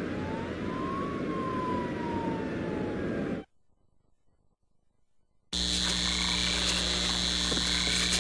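Advert sound effects. A steady noisy rumble with a whistle-like tone that rises and then falls cuts off abruptly about three and a half seconds in. After two seconds of silence, a steady mechanical hum with a high whine starts.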